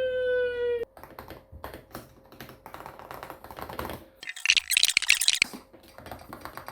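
Mechanical keyboard keys being pressed in a key test, scattered clicks with a fast burst of rapid typing about four to five seconds in. A short held tone sounds for just under a second at the very start.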